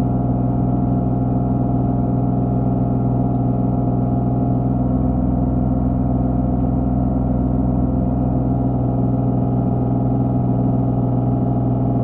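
Skid steer's engine running at a steady speed, holding one even pitch throughout.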